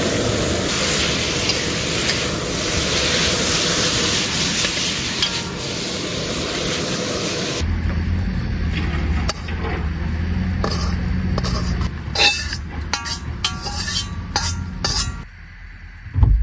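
Shredded pork and peppers sizzling loudly as they are stir-fried in a hot pan. About eight seconds in the sizzle stops abruptly, followed by a series of sharp clinks and scrapes of a spatula against the pan.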